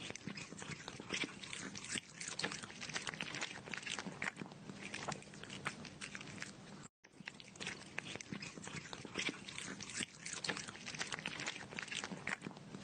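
An animal, likely a pet, chewing crunchy food: a dense, irregular run of quick crunches, broken by a brief gap about seven seconds in.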